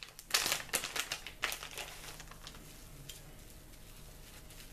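Plastic packaging crinkling as it is opened by hand, a run of sharp crinkles in the first second and a half, then only faint rustling.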